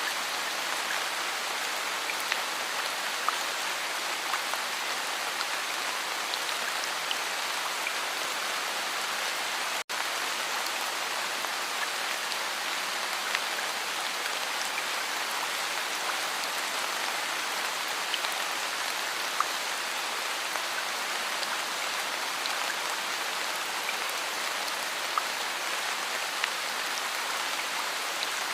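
Steady rain falling, an even hiss with scattered ticks of single drops striking. The sound cuts out for an instant about ten seconds in.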